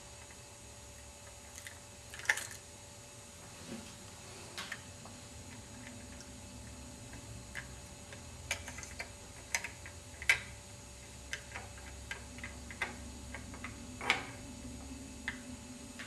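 Small sharp clicks and taps of Lego plastic parts as a toy garbage cart is worked on a Lego model garbage truck's cart tipper and knocked into the hopper. The clicks come irregularly, a few of them sharper than the rest.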